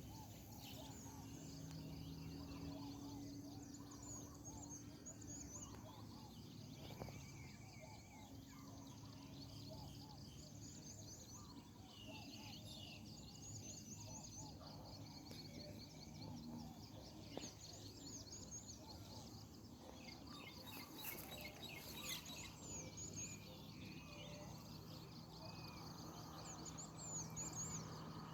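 Faint outdoor ambience of many birds chirping and calling over a steady high trilling of insects.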